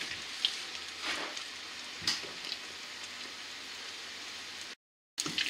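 Coated artichoke pieces deep-frying in hot seed oil in a small pot: a steady sizzle with a few crackles, cutting out for a moment near the end.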